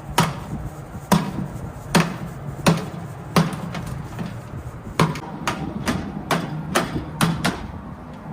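Kitchen knife chopping white radish on a cutting board: about a dozen separate strokes at an uneven pace, coming quicker after about five seconds in.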